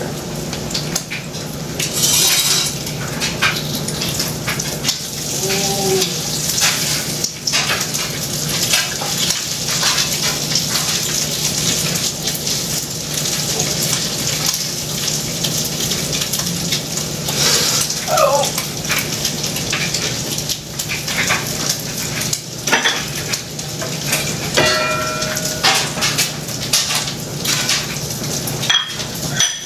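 Food sizzling and crackling in a frying pan, with occasional clinks of utensils against the pan.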